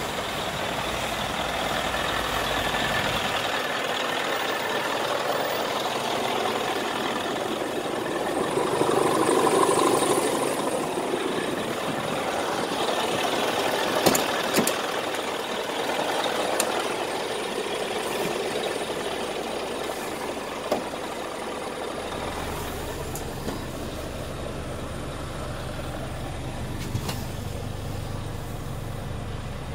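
Scania P360 truck's diesel engine idling steadily, with a few sharp clicks and knocks partway through. A deeper low rumble comes in about two-thirds of the way through.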